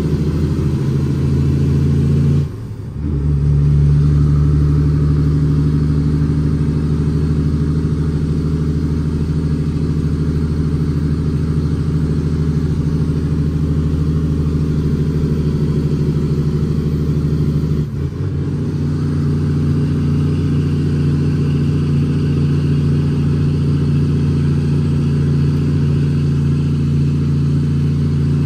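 Cummins ISX diesel engine of an International ProStar dump truck running steadily under a full load of gravel, heard inside the cab. The engine note breaks briefly about 3 seconds in and again near 18 seconds, then carries on.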